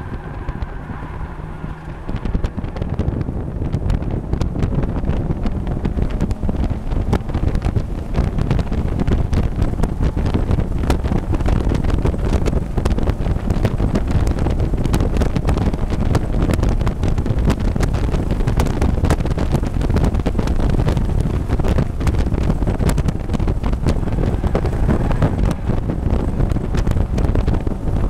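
Mazda MX-5 race car at racing speed, heard from an onboard camera in the cockpit: a loud, rough drone of engine, road and wind noise, with many small clicks and knocks through it. It grows louder about two seconds in.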